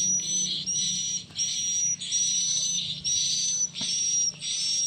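Recorded swiftlet calls, a lure sound for swiftlet houses, played through horn tweeters: short high chirps that rise and then hold, repeating about one and a half times a second, over a faint steady hum.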